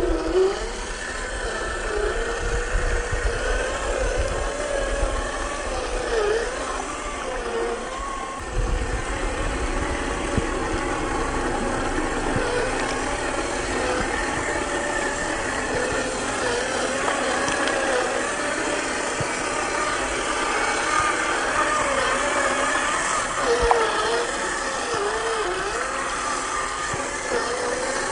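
Electric motor and steel-geared two-speed drivetrain of a 1/10 scale RC rock crawler with a 550-size 21-turn motor, whining steadily. Its pitch dips and recovers again and again as the motor loads up crawling over rocks.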